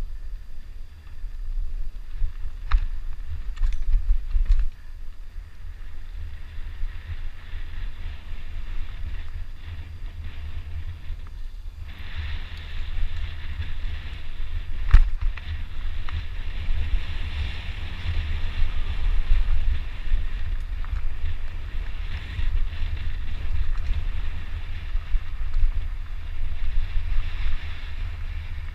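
Riding noise from a downhill mountain bike: wind buffeting the microphone and a steady hiss of tyres on the trail, with a few sharp knocks and clatters from the bike over rough ground. The hiss gets louder about twelve seconds in.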